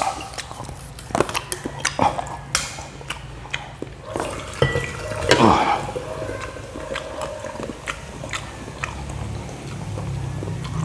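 Close-up chewing of lechon kawali, crispy deep-fried pork, with wet mouth sounds and many short clicks from teeth and utensils on a plate.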